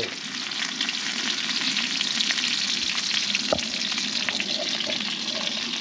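Partridge and fish frying in garlic, butter and vegetable oil in a frying pan on a camp stove, sizzling steadily with fine crackles. One brief knock about three and a half seconds in.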